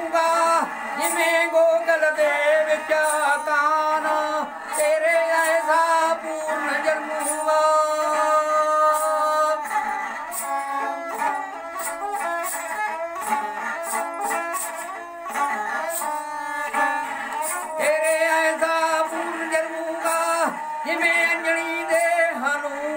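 A man singing a Punjabi folk kali in a strong, high voice, accompanying himself on a bowed Punjabi sarangi. The voice drops out for a while in the middle, leaving the sarangi playing held, sustained notes.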